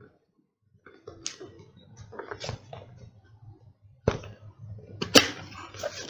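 A stiff cardboard box being handled and its lid pulled open, with cardboard scraping and rubbing. Two sharp snaps come about a second apart near the end as the lid comes free.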